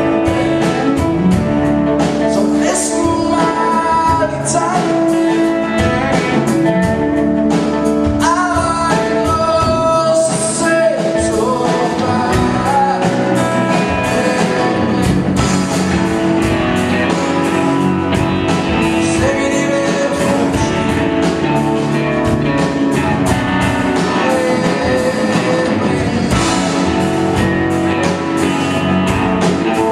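Live rock band playing: drum kit keeping a steady beat under bass, guitars and keyboard, with a man singing lead.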